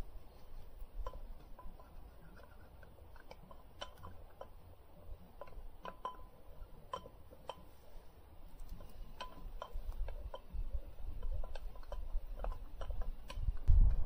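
A metal spoon clinking against a cooking pot while food is stirred, in scattered light clinks. A low rumble builds in the second half.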